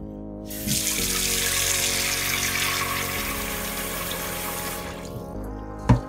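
Kitchen tap water running into a rice cooker's inner pot of uncooked glutinous rice for rinsing, starting about half a second in and stopping after about four seconds. A single thump comes near the end.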